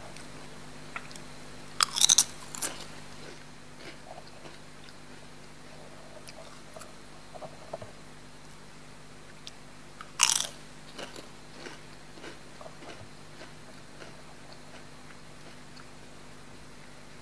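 Close-up eating of crunchy chips: a cluster of loud crunches about two seconds in as a tortilla chip is bitten, another loud crunch about ten seconds in, and quieter chewing crunches in between and afterwards.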